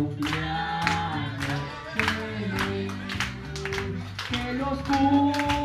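Music: singing over instruments with a steady bass line, and hands clapping along.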